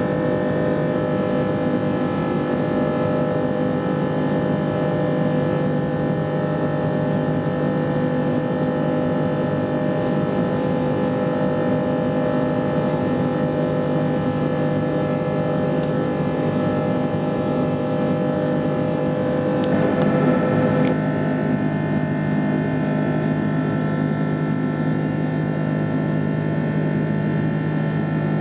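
Steady in-flight cabin noise of an Airbus A330-300: a constant drone from the jet engines and airflow, carrying several steady hum tones. About two-thirds of the way through it swells briefly and the tones shift a little before settling again.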